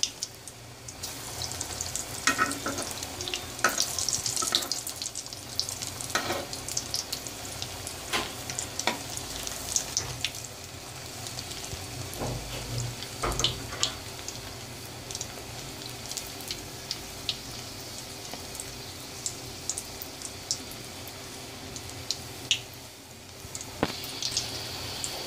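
Egg-and-breadcrumb-coated potato chops (aloo chop) deep-frying in hot oil in a karahi: a steady sizzle with frequent small crackling pops. A metal spoon turns them in the oil in the middle and near the end.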